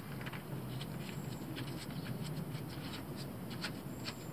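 Faint, irregular light clicks and scraping of a socket ratchet turning the drain plug back into the front differential housing.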